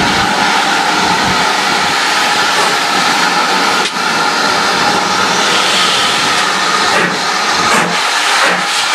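GWR 2251 Class 0-6-0 steam locomotive hissing steadily and loudly at close range. About seven seconds in, short sharp puffs begin, and steam blows from the cylinder drain cocks as the engine starts to work.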